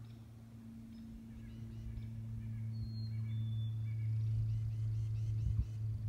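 Spring woodland birds calling: a clear two-note whistle that falls in pitch about three seconds in, and scattered short chirps and calls, over a steady low hum that grows louder.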